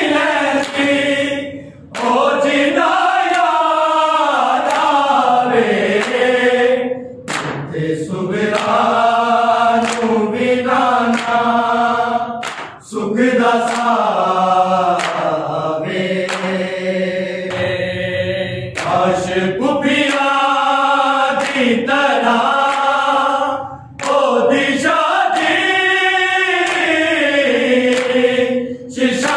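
A group of men chanting a Punjabi noha, a Shia lament, unaccompanied and in unison. Long sung lines are broken by short breaths between them.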